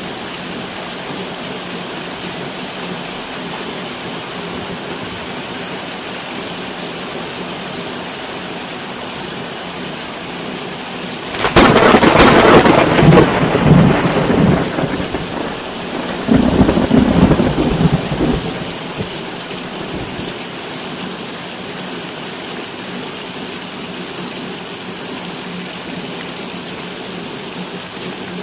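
Steady rain falling, with a sudden peal of thunder a little before halfway through that rumbles for about three seconds, and a second rumble of thunder soon after.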